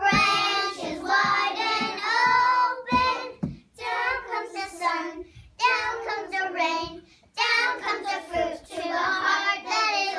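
A group of young children singing a song together without accompaniment, in phrases separated by short pauses.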